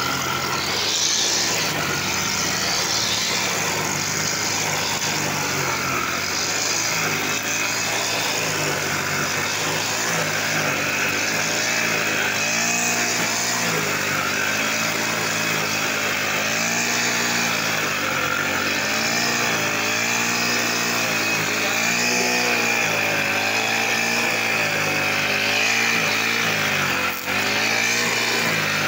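Brush cutter engine running fast with its nylon-line trimmer head cutting grass. The engine note swings up and down over and over, and dips briefly once near the end.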